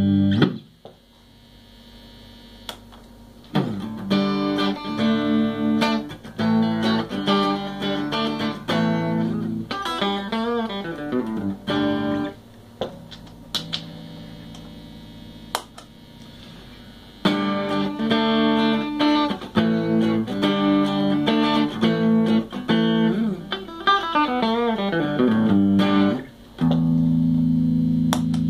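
Electric guitar played through a compressor pedal into a small Peavey combo amp: two passages of picked single notes and chords with a pause of a few seconds between them, ending on a held chord.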